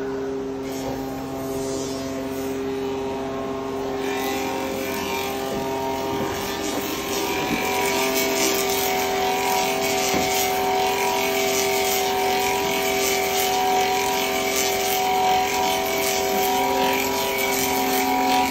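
A motor-driven machine running with a steady whine of several tones over a hiss; the hiss thickens and the sound grows louder about four seconds in.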